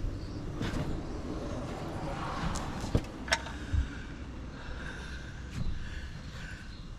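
A wrench worked against an over-tightened oil drain plug, giving a few sharp metal clicks and knocks about three seconds in, over a steady low rumble.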